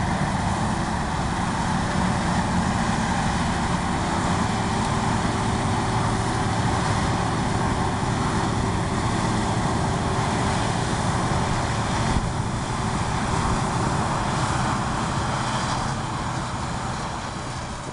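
Harvest machinery's diesel engine running steadily under load, with a dense rushing noise over the low engine drone; it begins to fade near the end.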